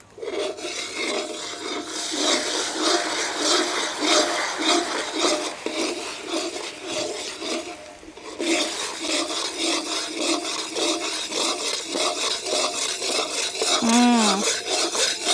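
Fish sauce sizzling and bubbling hard in melted coconut-sugar caramel in a wok, with a metal ladle stirring and scraping the pan. It starts suddenly as the sauce goes in and eases briefly about eight seconds in.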